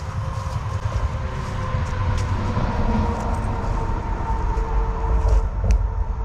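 Steady low rumble of traffic from a nearby highway, with a sharp click near the end.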